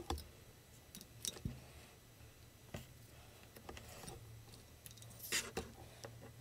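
Handling noise from hot-gluing a small FPV quadcopter: scattered light clicks and knocks as the mini hot glue gun and the quad are moved about on a cutting mat, the loudest a brief scrape about five seconds in. A faint steady low hum runs underneath.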